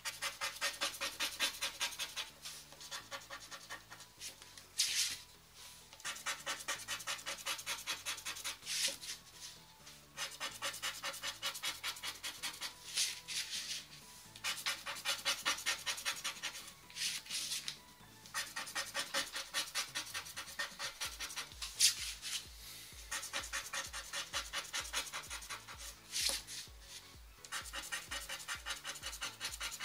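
A scratch-off lottery card being scratched in rapid, even strokes, in runs of a few seconds broken by short pauses, over quiet background music.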